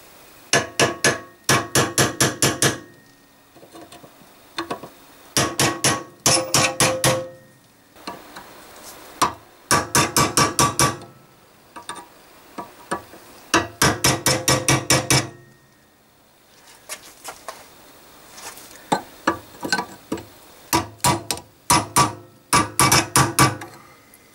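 Hammer striking a cold chisel set against the steel outer sleeve of a shock-absorber silentbloc in a Panhard Dyna Junior rear suspension arm held in a vise. The sleeve has been sawn through and is being driven out. The blows are ringing metal-on-metal strikes, about four a second, in about eight short runs with brief pauses between them.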